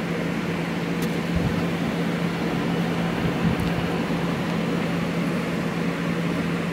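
Small electric desk fan running: a steady whir of air with a constant low motor hum.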